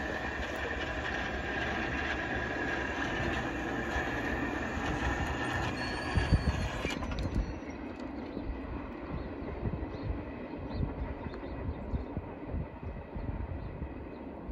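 CSX intermodal freight train rolling away down the track, a steady high-pitched wheel squeal over the rumble of the cars. About halfway through, the sound drops to a fainter, distant rumble.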